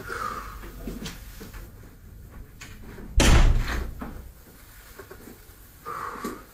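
A door slams shut once, about three seconds in, with a short ringing tail.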